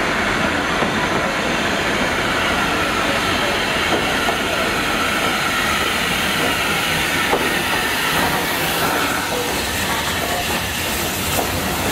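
LSWR T9 class 4-4-0 steam locomotive 30120 rolling slowly into the platform, with a steady hiss of steam and the clatter of its wheels and running gear on the rails.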